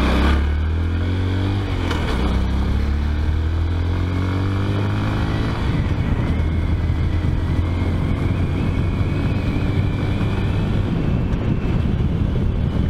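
2014 Honda Grom's 125 cc single-cylinder engine running under way, climbing in pitch over the first five or six seconds as the bike picks up speed, then holding a steady cruise.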